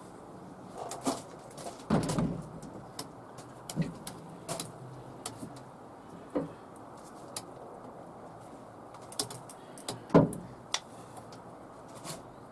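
Scattered clunks and clicks of a folded fat-tyre e-bike being set onto a steel sliding rack in a pickup bed and the rails being handled, with two louder knocks, one about two seconds in and one near the end.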